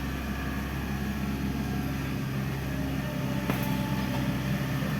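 Hydraulic excavator's diesel engine running steadily, with a faint knock about three and a half seconds in.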